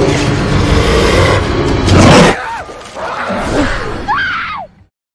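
Loud dramatic film soundtrack: a dense swell of music and effects that ends in a heavy hit about two seconds in. Fainter wailing pitch glides follow, then it cuts off abruptly to silence near the end.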